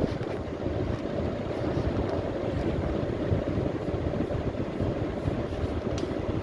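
Voltas window air conditioner running with a steady hum and whoosh. There is no rattle or knocking: the fan blade now clears the rust-swollen casing it had been hitting. One light click comes near the end.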